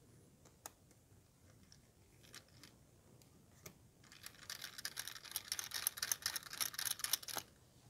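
Small Phillips screwdriver backing a tiny screw out of a laptop's metal chassis. A few faint clicks come first, then from about halfway in a quiet, rapid, gritty ticking and scratching of the bit turning in the screw for about three seconds.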